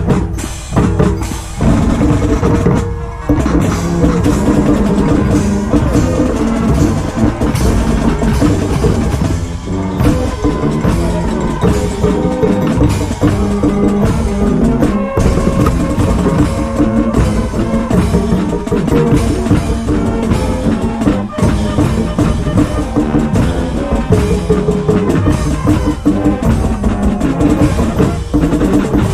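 High school marching band playing a brass-and-drums tune, with snare and bass drums keeping a steady beat under the horns.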